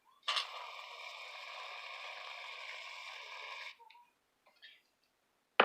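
Aerosol can of shaving foam dispensing: a steady hiss that starts sharply and runs about three and a half seconds before cutting off. A single sharp knock comes at the very end.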